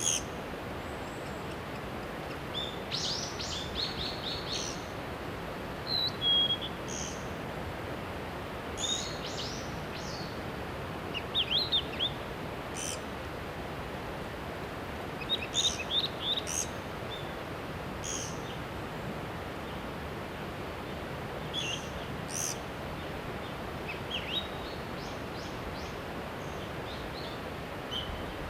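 Birds calling in short high chirps and quick runs of chirps, scattered through, over a steady rushing background noise.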